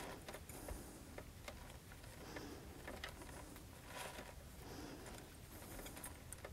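Faint light clicks and taps of small metal parts being handled as a hard drive's head actuator assembly is worked loose and lifted out of the open drive case.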